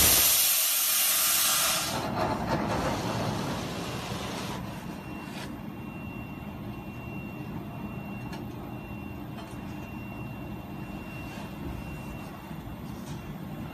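Laser cutter's assist gas hissing from the cutting head, which cuts off about two seconds in. After that a steady low machine hum with a faint high whine and a few light ticks.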